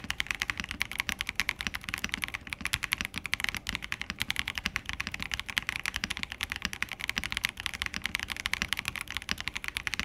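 Hexgears M2 mechanical keyboard being typed on quickly and continuously as a sound test: a dense, steady stream of key clicks and clacks, several strokes a second.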